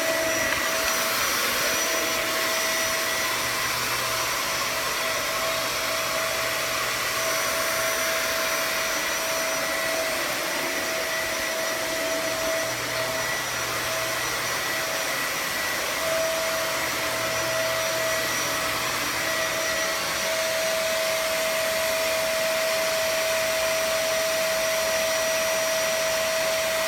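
Vacuum cleaner running steadily: an unbroken motor whine over rushing airflow.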